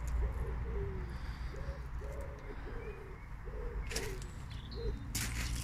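A pigeon cooing: a series of about eight short, low notes in phrases, with a couple of faint clicks near the end.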